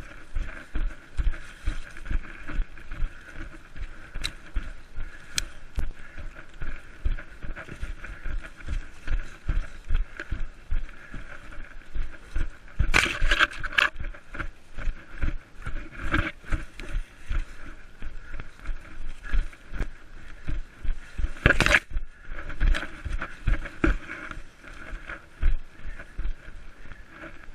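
Running footsteps and body jolts on a body-worn action camera moving through forest undergrowth, quick regular thuds a few times a second. Loud brushing rustles stand out about halfway through and again a few seconds later.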